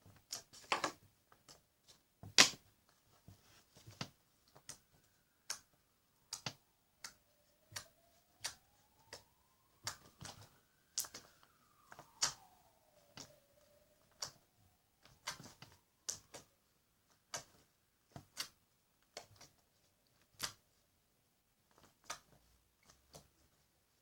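Clear slime being squeezed and poked, giving sharp little clicks and pops, unevenly spaced at roughly one or two a second. Behind them a faint tone slowly rises and falls for about ten seconds in the middle.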